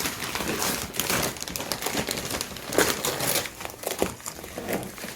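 Toy packaging being handled, crinkling and rustling irregularly with many small crackles.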